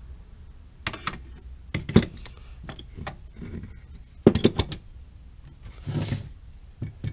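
A small metal vise being handled and set down on a wooden shelf: a few sharp knocks and clatters of metal on wood, a quick run of them about four seconds in, then a brief scrape near the end.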